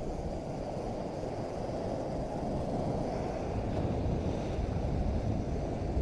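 Wind rumbling on the microphone over small waves washing up a sandy beach, a steady noise that grows slightly louder.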